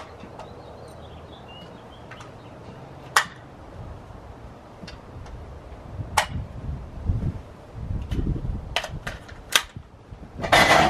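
A string of sharp cracks spaced irregularly, the loudest two in the first few seconds, with a quick cluster of three around nine seconds in. A low rumble comes and goes in the middle, and a short hiss comes near the end.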